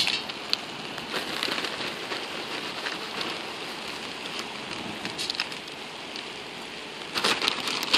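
Fatwood shavings burning hard in a stainless-steel IKEA hobo stove: a steady rush of flame with scattered crackles and pops, the crackling growing denser and louder near the end.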